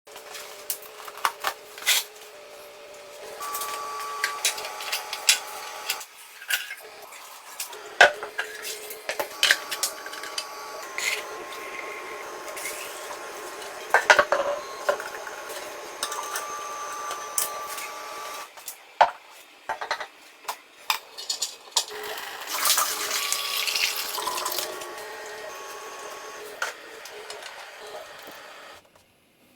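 Metal parts and tools clinking and clattering in irregular sharp knocks, some leaving a brief metallic ring. It drops off just before the end.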